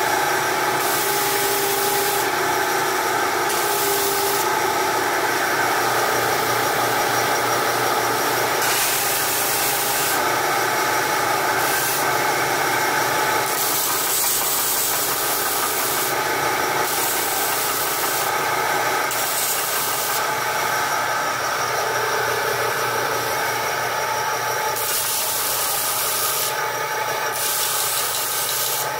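Belt sander motor running steadily while a small wooden cage feeder is pressed against the belt, the high sanding hiss coming and going as the piece touches and leaves the belt.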